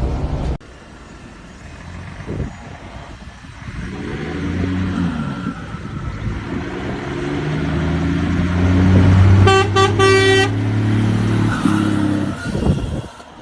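Mercedes-Benz truck's diesel engine revved hard as the truck drives by, its note rising and falling through gear changes and growing louder, then dropping away near the end. A quick run of short horn toots sounds about nine and a half seconds in.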